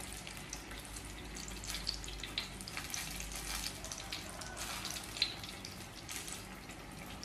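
A battered papaya strip deep-frying in hot oil in a wok: a steady sizzle with scattered crackles, and one sharper pop about five seconds in.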